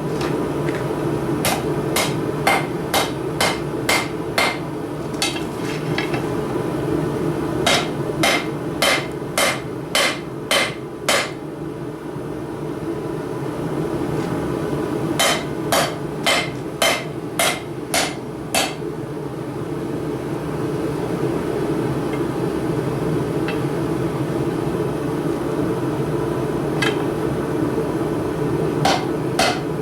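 Blacksmith's hammer striking steel on an anvil while forging tongs, in runs of blows about two a second with pauses between runs and a few single strikes. A steady low rushing noise runs underneath.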